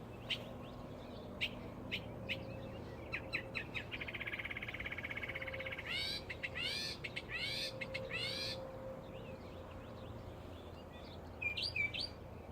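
A songbird singing a varied song: several single sharp chirps, then a rapid buzzy trill lasting nearly two seconds, then four or five loud repeated arching notes, and a couple of quick twisting notes near the end.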